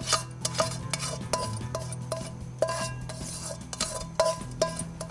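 A spoon stirring soaked basmati rice in a large pot of water, clinking against the pot about twice a second, each clink ringing briefly.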